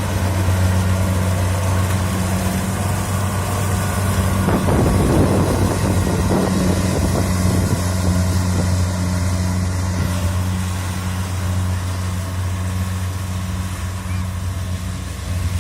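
Diesel engine of a Kubota DC70 combine harvester running steadily with a constant low hum.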